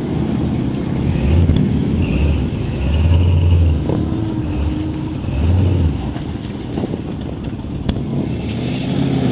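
Lifted Chevy K5 Blazer mud truck's engine revving in three loud surges, about a second and a half, three and a half and five and a half seconds in, as it churns through soft dirt and mud.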